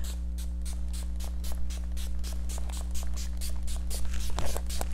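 Microphone static from a badly placed mic: a steady electrical hum with fast, evenly spaced crackling clicks, about five a second.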